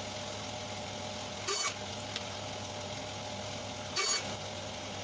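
Makita LB1200F band saw's 900 W motor running steadily with a hum, with two short, sharper bursts about a second and a half in and again about four seconds in.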